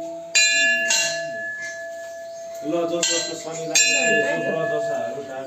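Brass Hindu temple bells struck by hand, four strikes in two pairs about two and a half seconds apart, each ringing on and slowly fading over a steady hum.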